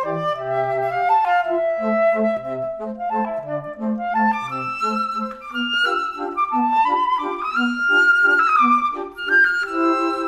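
Instrumental background music: a melody in long held notes over short, repeated bass notes, with one long high note held a little past the middle.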